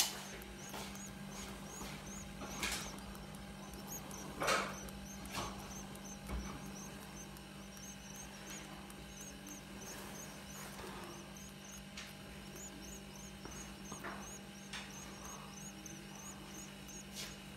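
Goldfinch nestlings begging: a steady run of high, thin cheeps, about three or four a second, over a steady low hum, with a few brief knocks between about two and six seconds in.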